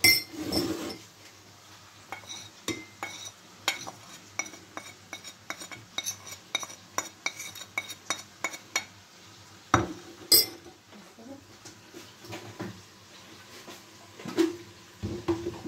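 Metal spoon clinking and scraping against a ceramic bowl and plate as dry ground spices are scraped in and stirred, a quick run of light taps with a few louder knocks near the start, around the middle and near the end.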